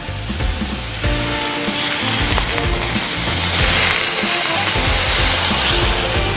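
Water poured into a hot wok of stir-fried beef and vegetables, hissing and sizzling; the hiss builds from about two seconds in and is loudest around five seconds. Background music plays underneath.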